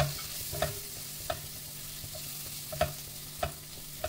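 Silicone spatula stirring onion-tomato masala in a nonstick pot, knocking against the pot about six times at uneven intervals, over a steady soft sizzle of the masala frying in oil.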